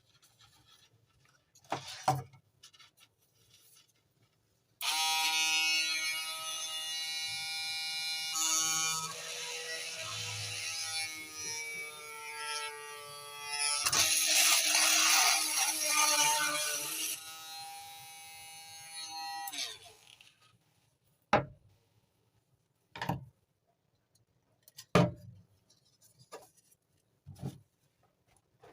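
Small electric motor of a homemade sander switched on and running with a buzzing whine for about fifteen seconds. Its pitch wavers and slides partway through, and it winds down near the end. A few sharp knocks come before and after.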